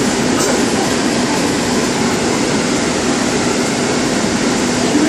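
Steady running noise of an MTR C-Train metro train and its underground platform: a constant low hum under an even wash of station noise.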